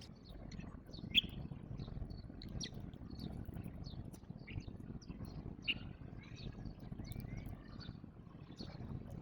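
House sparrows chirping: many short, scattered chirps from several birds, over a steady low background rumble.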